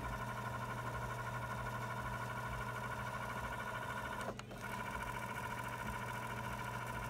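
Nakamichi 680ZX cassette deck fast-winding a tape: a steady motor and spooling whine with a light pulsing flutter. About four and a half seconds in it stops with a click as the transport switches from fast-forward to rewind, then the same whine resumes.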